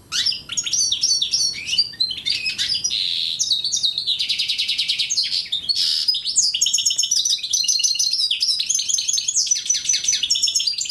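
European goldfinch singing: a continuous, rapid run of twittering notes, trills and buzzy passages without a break.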